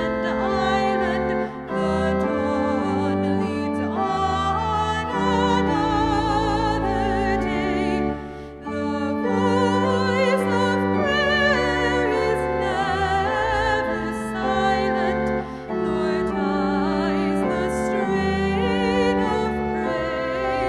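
A woman's solo voice singing a slow song with vibrato over sustained instrumental accompaniment, with a few brief pauses between phrases.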